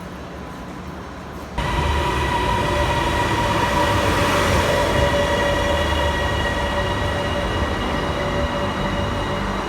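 Metro train running: a steady rumble with a high, steady whine from the motors and wheels. It gets suddenly louder about one and a half seconds in.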